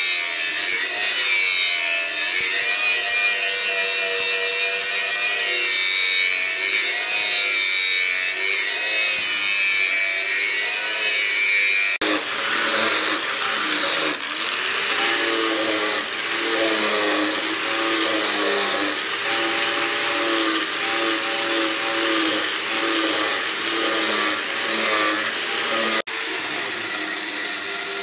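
Electric angle grinder with an abrasive disc grinding a steel leaf-spring knife blade. The motor whine wavers in pitch as the disc bears on the steel, with abrupt changes about 12 and 26 seconds in.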